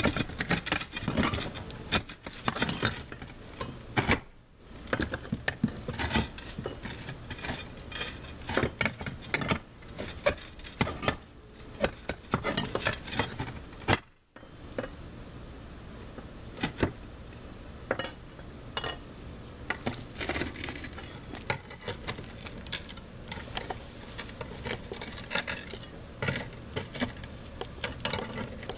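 Concrete roof tiles scraping and knocking against each other as a tile is worked loose and lifted out by hand, an irregular run of gritty rubbing and short hard clicks.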